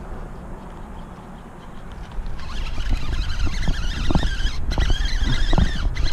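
Fishing reel cranked steadily from about two and a half seconds in, with a wavering whir, as a bass hooked on a topwater rat bait is reeled in on a bent rod. A low rumble and a few short thumps run under it.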